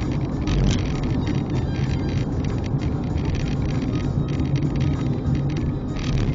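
Car driving at about 60–70 km/h: a steady rumble of engine and road noise, heard from inside the cabin through a dashcam microphone.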